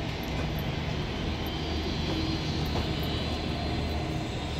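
Passenger coaches of a diesel-hauled train rolling slowly past, with a steady low drone and the even rumble of the moving train.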